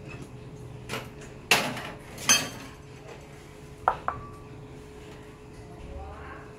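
Kitchenware clattering: a light knock, then two louder clanks under a second apart, each ringing briefly, then two quick sharp clicks, the second leaving a short ringing tone.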